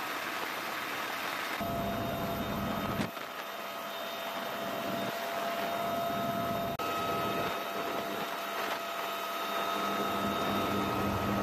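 UH-1Y Venom helicopter's turbine engines and rotor running, heard from inside the open cabin: a steady rushing noise with a held whine, changing abruptly a few times between shots.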